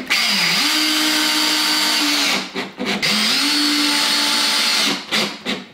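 Cordless drill driving screws through a plywood panel into a timber frame: two runs of about two seconds each, the motor whine coming up to speed, holding steady, then winding down. A few short clicks fall between and after the runs.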